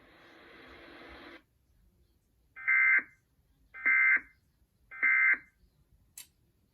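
Emergency Alert System end-of-message (EOM) signal: three short, loud bursts of the SAME digital data tone, about a second apart, marking the end of the alert test. A faint hiss comes before them and stops about a second and a half in, and a single click comes near the end.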